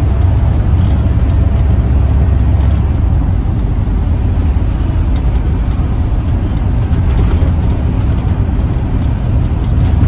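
Mercedes-Benz O814 minibus with a Plaxton Beaver 2 body, heard from inside the saloon while on the move: a steady low diesel drone and road rumble, with a few light rattles from the bodywork.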